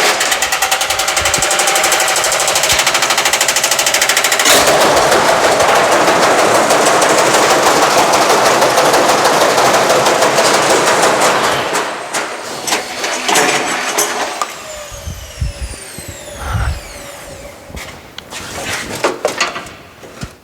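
Beko washing machine in a violent unbalanced spin, its drum and cabinet banging in a fast, continuous rattle as the machine shakes itself apart. About eleven seconds in, the banging dies away and the motor winds down with a falling whine and a few heavy thumps.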